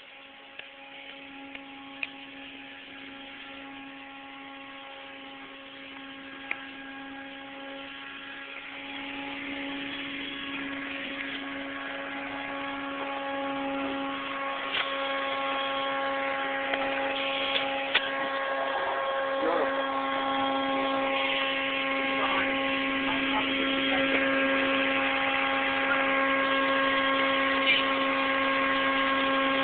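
A steady machine hum with a pitched drone that gradually gets louder, with a few scattered clicks.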